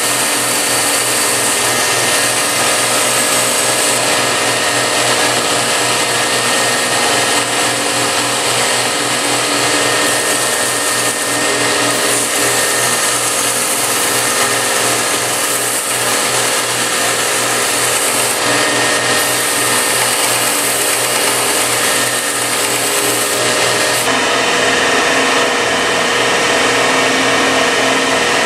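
Home-built 2x72 belt grinder running steadily, its motor humming under the hiss of a knife blade being ground on the abrasive belt; the hiss shifts a few times as the blade is worked, then the grinder stops abruptly at the end.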